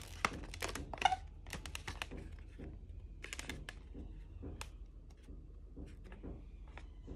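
Inflated latex twisting balloons of a balloon monkey rubbing and squeaking under the fingers as the figure is handled and adjusted: a string of short squeaks and clicks, thickest in the first two seconds and sparser after, with one clearer pitched squeak about a second in.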